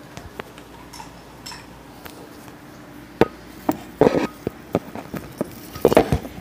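Scattered light knocks and short rubbing noises from fingers handling a phone close to its microphone, with a sharp knock about three seconds in and brief scuffs about four and six seconds in.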